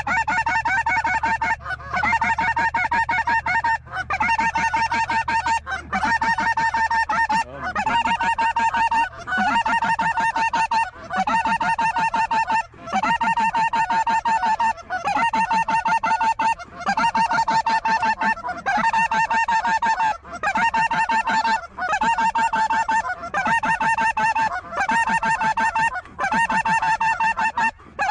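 Dense chorus of geese honking, high-pitched and continuous, with a pattern that dips and repeats about every two seconds.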